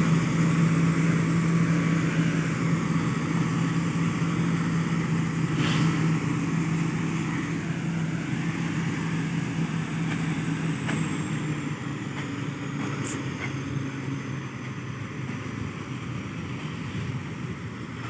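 A motor grader's diesel engine runs steadily as the machine drives away down a dirt track. The sound fades gradually as it goes.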